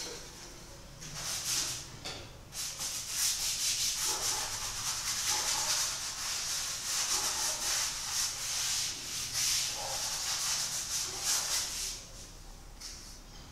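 Paintbrush scrubbing paint onto canvas: a hissy brushing of quick back-and-forth strokes, one short burst about a second in, then a long continuous run that stops near the end.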